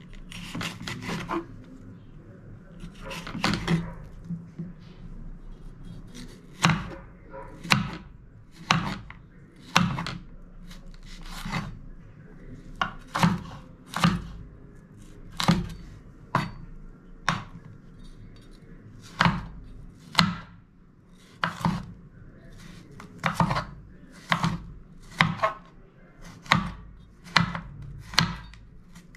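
Kitchen knife slicing bitter gourd into strips on a wooden cutting board: the blade knocks on the board with each cut, roughly once a second and unevenly spaced.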